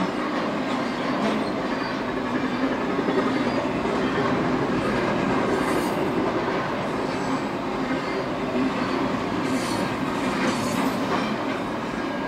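Double-stack intermodal freight cars of a CSX train rolling past: a steady rumble and clatter of wheels on rail, with a few brief sharper clanks or squeals from the cars.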